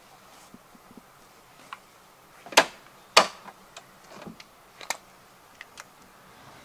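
Two sharp metallic clicks about half a second apart, with lighter clicks and knocks around them: a Land Rover Defender's rear side door latching open and gear being handled at the doorway.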